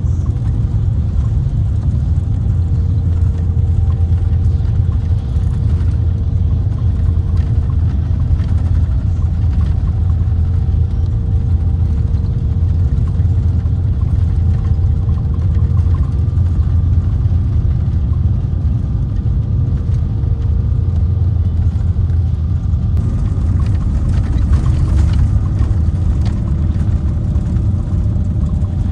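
Mercedes-Benz O-500R coach's rear-mounted diesel engine running steadily, a deep rumble with a faint steady whine over it. About two-thirds of the way through the sound brightens, with a few light rattles.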